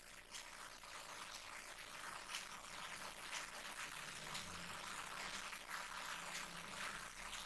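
Faint, irregular clicking and scraping of hands working the metal frame and plastic parts of a dismantled Epson L1455 inkjet printer, easing the frame loose to lift it out.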